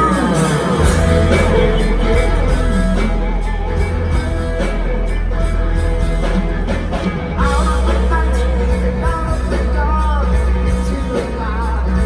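Live progressive rock band playing loudly, with a heavy bass and a lead melody that wavers in pitch.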